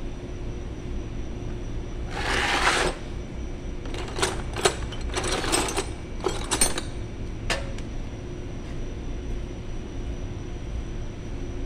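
Metal tools or parts clinking and rattling as they are handled: a short scraping rustle about two seconds in, then a few sharp clinks over the next few seconds, over a steady low hum.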